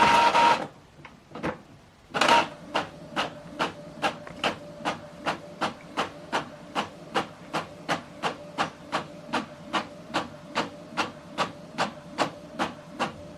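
Epson XP-5200 inkjet printer printing a page: a short loud burst of mechanical noise right at the start, then from about two seconds in the print head carriage shuttling back and forth in a steady rhythm, about two and a half strokes a second.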